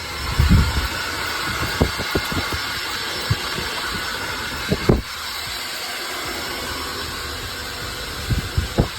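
Salon hair steamer running with a steady hiss, broken by a few soft knocks and bumps.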